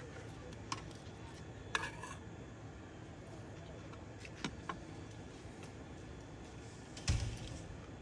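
Light clicks and clinks of a fork and tableware against plates, one of them ringing briefly, over a quiet steady background, with a louder thump near the end.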